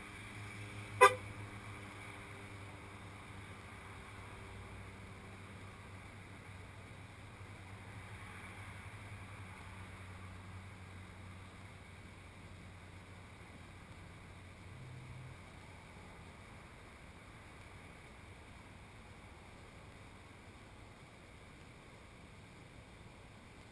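One very short car horn chirp about a second in, then faint outdoor background with a steady low hum.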